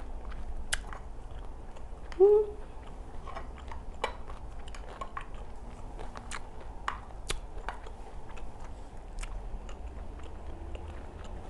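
Close-up mouth sounds of a person chewing rice cakes in cream sauce, with many small wet clicks and smacks scattered throughout. A short voiced hum about two seconds in is the loudest sound.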